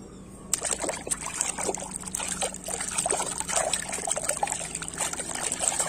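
Soapy water sloshing and splashing as a hand scrubs a plastic toy animal in a tub of foamy wash water, starting about half a second in.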